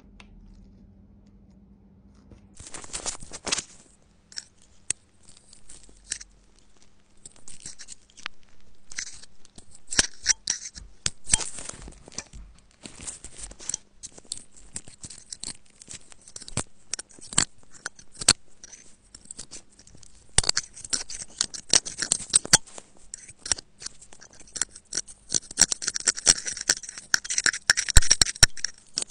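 Metal pick scraping and prying packed lint and dust out of an iPhone's Lightning charging port, close-miked. Scratchy scrapes and sharp little clicks start about two and a half seconds in and grow denser near the end.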